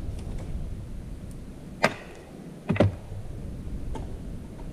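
Sharp knocks of tools and parts being handled while a Ford E4OD automatic transmission is taken apart: one just under two seconds in, then a double knock about a second later.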